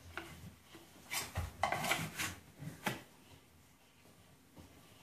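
Hand handling of a small hard plastic airsoft gun part: a run of clicks and rubbing as it is worked and fitted by hand, busiest in the first half, then quieter.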